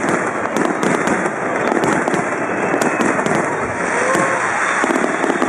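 Aerial firework shells bursting in a continuous display, with many sharp crackles and pops over a steady rumble.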